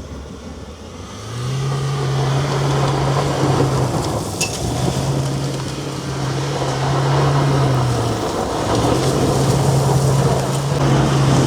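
Rely R8 pickup doing donuts on a dirt road: the engine is held at steady revs in three long pulls, easing off briefly about four and eight seconds in, over a loud hiss of tyres spinning and scrabbling on loose dirt.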